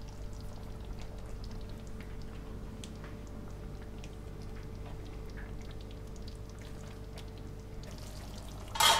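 Chicken in crushed tomato sauce simmering in a large frying pan, with many small pops and bubbles over a steady low hum. A brief louder noise comes just before the end.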